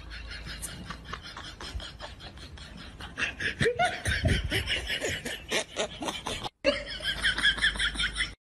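A person laughing in quick, loud bursts that start about three seconds in, after a quieter stretch of low noise. The laughter breaks off briefly and then carries on.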